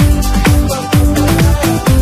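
Electronic dance music with a steady kick drum, about two beats a second, under held synth notes.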